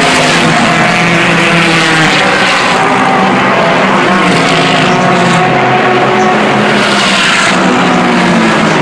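Several IMSA sports-car racing cars' engines at racing speed passing one after another on the straight, loud and continuous. Their engine notes overlap and slide up and down in pitch as each car goes by.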